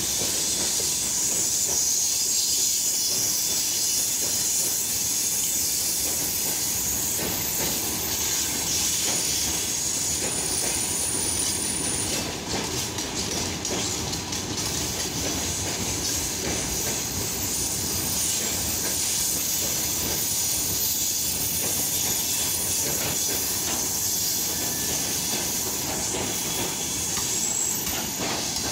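Freight train of open gondola wagons rolling past close by: a steady rush and rattle of wheels on the rails, with a high hiss and thin high wheel squeals now and then.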